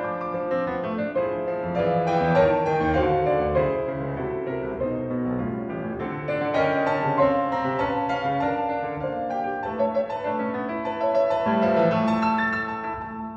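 Solo piano playing a classical sonatina, many notes sounding together across the low and middle range with no break.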